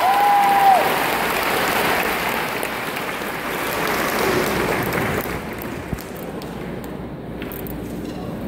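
Audience applauding at the end of a live song, the last held note stopping under a second in; the applause dies away after about five seconds.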